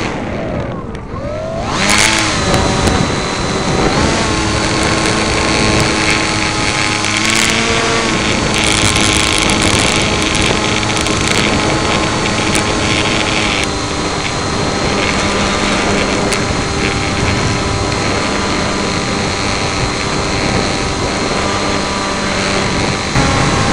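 Motor and propeller of an EPP foam FPV model plane running with a steady whine. The pitch drops sharply and climbs back up in the first two seconds as the throttle is cut and reopened. Strong wind rushes over the plane's onboard microphone throughout.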